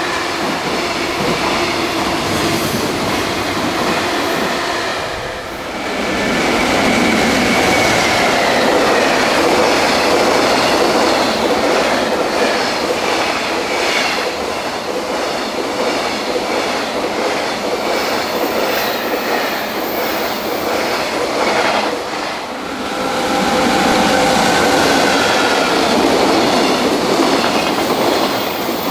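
Long container freight trains rolling past at speed, wheels clacking over rail joints under a steady rumble, with a faint wheel squeal. The sound cuts twice from one passing train to the next.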